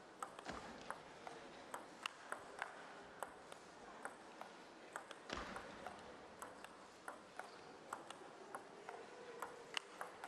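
Table tennis ball in a long rally, a steady series of light ticks, about two or three a second, as it strikes the bats and bounces on the table.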